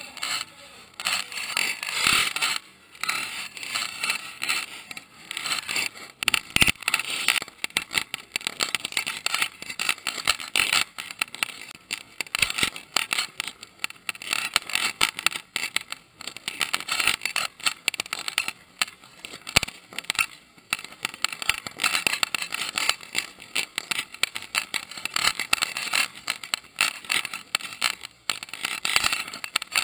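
Ground fountain fireworks spraying sparks: a loud hiss with dense crackling, the level flaring and dipping constantly.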